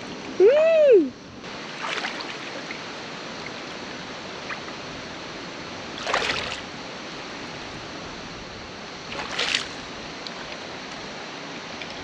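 Running creek water with a steady rushing sound, and a few brief splashing or scuffing noises near 2, 6 and 9.5 seconds. About half a second in comes one short, loud voiced sound from a person that rises and then falls in pitch.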